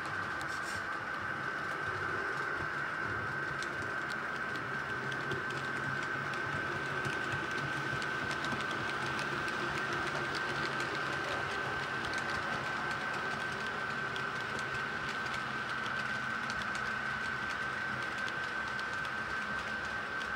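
S scale model trains rolling on track, with a steady high-pitched whine from the running gear, a low hum, and light clicking of wheels over rail joints.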